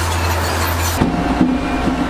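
Heavy earthmoving machinery engines running: a steady low drone that changes abruptly about halfway to another engine sound with sharp knocks.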